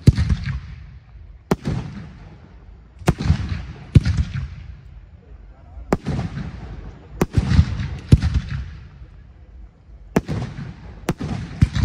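Aerial firework shells bursting in a steady sequence: about nine sharp bangs one to two seconds apart, each followed by a rolling tail that fades within a second or so.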